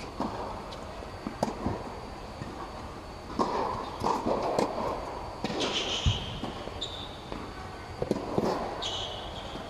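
Tennis rally on an indoor hard court: sharp pops of racket strikes and ball bounces, with sneakers scuffling and squeaking on the court surface, over a steady background hum.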